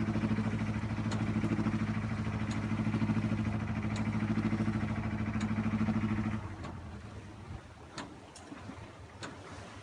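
Motorboat engine running steadily, a low hum that drops away suddenly about six seconds in, leaving fainter water and wind noise with a few sharp clicks.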